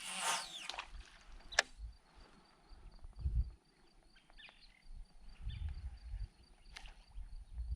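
Kayak on the water: a splash of paddle or water right at the start and a couple of sharp knocks, with wind rumbling on the microphone.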